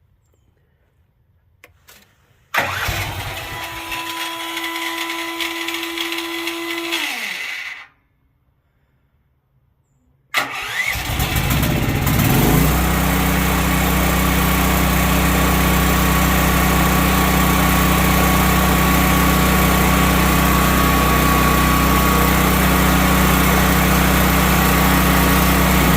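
Duromax XP12000HX portable generator engine, fitted with a new NGK BPR6ES spark plug, being started. A first attempt sounds for about five seconds and winds down. A second attempt catches about ten seconds in, and the engine runs up and settles into a steady run.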